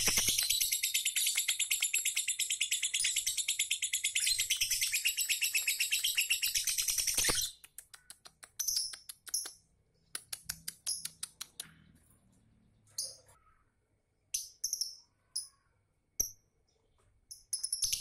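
Peach-faced lovebird chattering in a fast, continuous high trill that stops suddenly about seven and a half seconds in. After that come a few scattered short chirps and clicks, with a louder chirp near the end.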